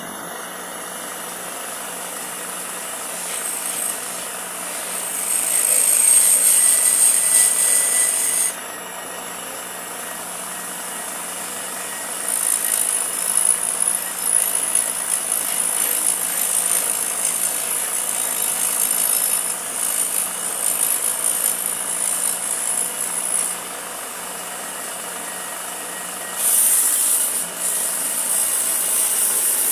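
Electric power tool running with a steady hum, working wood: a harsh hiss rises in three bouts as it cuts or sands, the longest about ten seconds.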